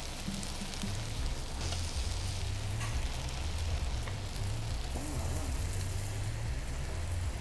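Beef satay skewers sizzling on an electric grill plate: a steady hiss over a low hum, with a few faint clicks.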